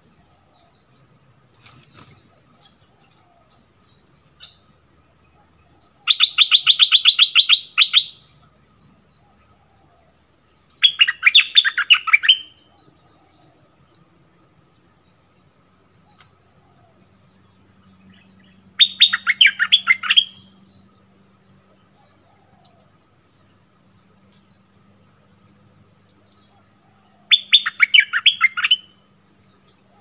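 Bulbul song: four loud bursts of rapid, scratchy notes, each lasting one to two seconds, spaced several seconds apart, with faint chirps in between.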